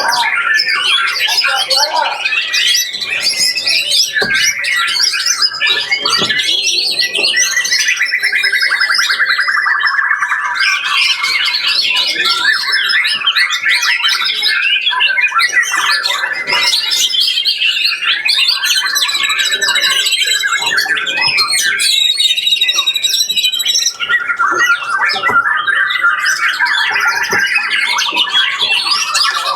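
Many caged songbirds singing at once at close range: a dense, unbroken mix of overlapping calls, with rapid trills standing out now and then.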